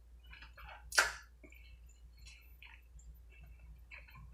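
Close-miked chewing of sauced Doritos nachos: soft wet mouth and lip sounds with small clicks, and one louder, sharper sound about a second in.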